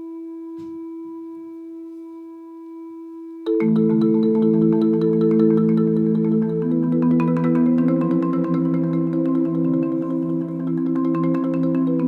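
A steady electronic sine tone with a few fainter higher tones, then about three and a half seconds in a rosewood marimba comes in loud, playing fast repeated strokes on chords whose notes shift slowly.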